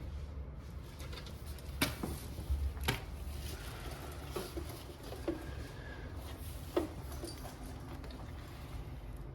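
A few light clicks and knocks over a steady low hum. The two sharpest come about two and three seconds in, and softer taps follow later.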